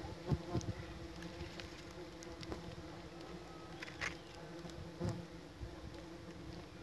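Stingless bees buzzing at their nest entrance, a steady low hum of many bees flying at once, with a few short knocks over it.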